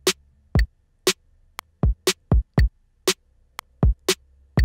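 Drum machine beat playing back: a short pattern of programmed kick, snare and closed hi-hat hits from Native Instruments Maschine, sequenced over MIDI. Deep kick thumps, a snare about once a second and crisp hat ticks in between.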